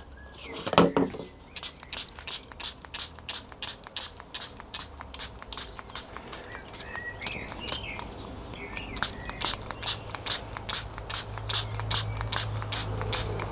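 Fine-mist atomizer spray bottle being pumped over and over, about three quick sprays a second, misting water onto balsa sheet.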